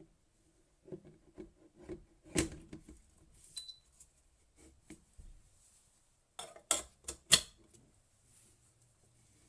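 Light clicks and knocks of an electric kettle being handled, with a short high beep about a third of the way in and three sharp clicks in quick succession about two-thirds through.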